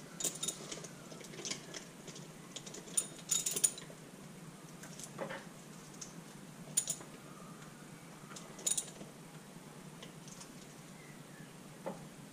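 Light metallic clicks and clinks of a socket ratchet and tools working on a motorcycle engine, scattered every second or so with a few in quick pairs.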